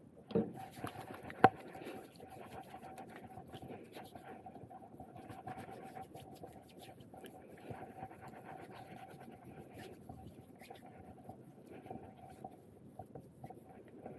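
Faint rustling and handling of a phone in a plastic bag, with a knock and then a sharp click about a second and a half in, over a faint steady hum.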